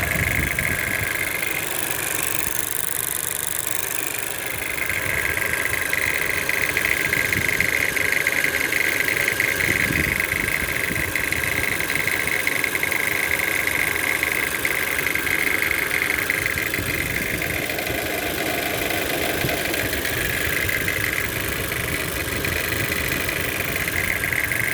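Toyota C-HR's 1.2-litre turbocharged four-cylinder engine running steadily with a rattling noise.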